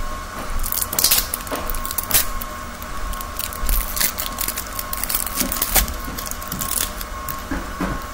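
Crinkling and rustling of a sticky candy wrapper being peeled off a Laffy Taffy bar: irregular sharp crackles throughout, over a faint steady hum.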